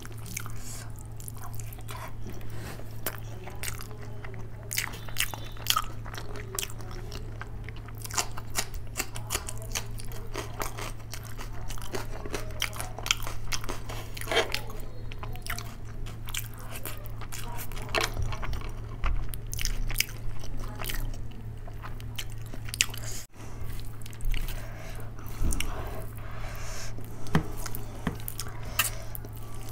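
Close-miked chewing and mouth smacking of a person eating rice with dal and curry by hand, with many short wet clicks, over a steady low hum.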